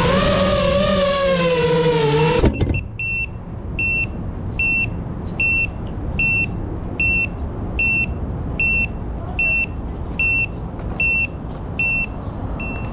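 A 5-inch FPV quadcopter's motors and propellers whine with a pitch that rises and falls, then cut off abruptly with a short knock about two and a half seconds in as the drone comes to rest on the ground. After that the drone's onboard buzzer beeps steadily, a short high beep about once every 0.8 seconds.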